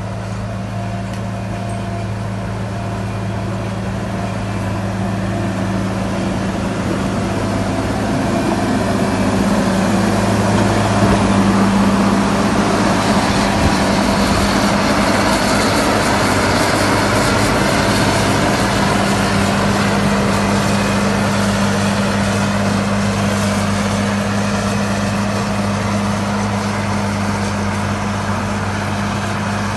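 Caterpillar 140M motor grader's six-cylinder diesel engine running steadily with a low hum. It grows louder toward the middle, with added noise above the hum, then eases off a little.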